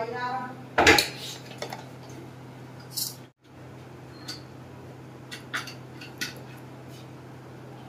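Kitchen utensils clinking on a stainless steel mixing bowl while spices are added to a potato filling: a loud knock about a second in, then scattered lighter taps, over a steady low hum.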